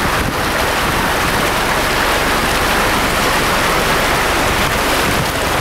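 Fast-flowing floodwater rushing along a flooded street, a steady, even rush of water.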